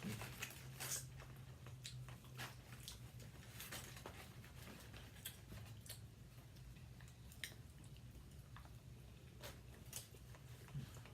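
People chewing and eating, with scattered soft wet smacks and small clicks, over a low steady hum.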